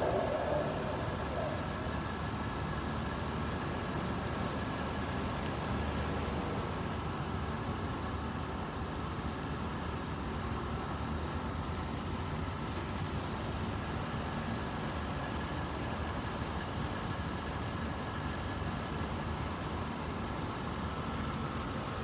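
Steady low rumble of idling engines with a faint steady hum above it.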